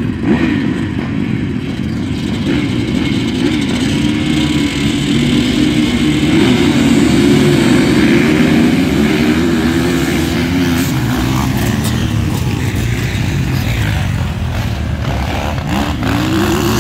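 Several motocross bikes running and revving together, a dense mix of engine notes whose pitch rises and falls.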